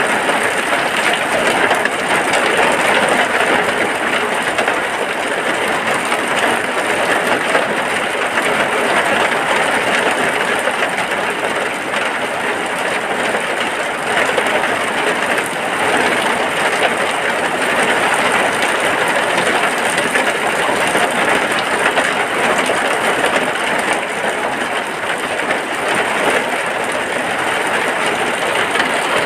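Rain falling steadily on a hut, a dense, even hiss that never lets up.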